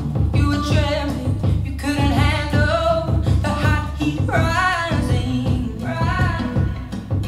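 R&B/pop song with a sung lead vocal over a heavy, pulsing bass beat, played back through a JBL 4329P active studio monitor.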